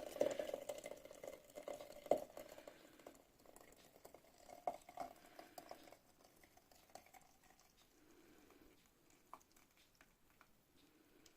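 Hot walnut tea pouring through a strainer into a teapot. The stream trickles and thins out over the first few seconds, followed by a few light clinks.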